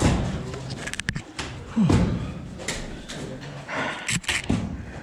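Ice axe picks and crampon points striking into an ice wall: a string of uneven knocks and thumps, the heaviest about two seconds in.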